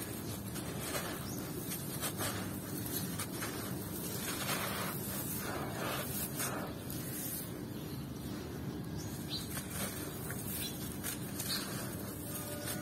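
Moulded lumps of sand and gravel mix crushed in bare hands, with the loose grit trickling and pouring through the fingers: a steady gritty rustle full of small crunches and crackles.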